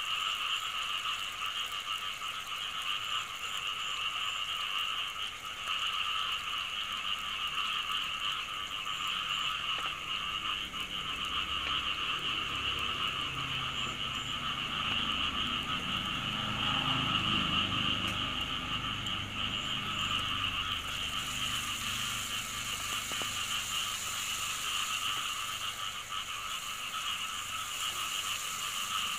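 A steady, unbroken chorus of calling frogs, high-pitched. A low rumble swells and fades about halfway through.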